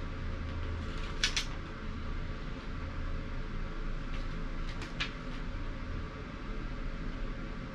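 Paper pages of an owner's manual being turned: a couple of short rustles about a second in and a few more around five seconds in, over a steady low hum.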